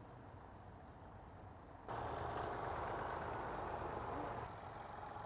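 Massey Ferguson 135 tractor engine running steadily, getting suddenly louder about two seconds in.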